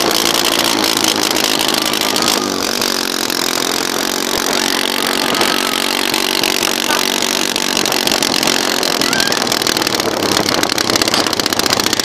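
Small engine of a vehicle towing a sled over snow, running with shifts in pitch as the throttle changes, over a steady hiss. The engine note fades near the end.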